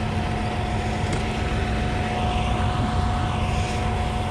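Concrete pump truck running steadily: a low engine rumble with a steady hum and a higher steady whine over it.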